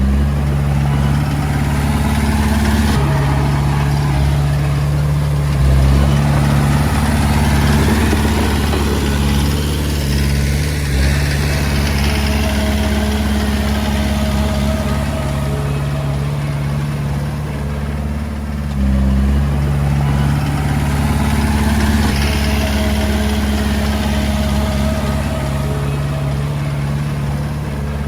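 Komatsu D20A bulldozer's diesel engine running steadily, its note and loudness shifting a few times as the load changes.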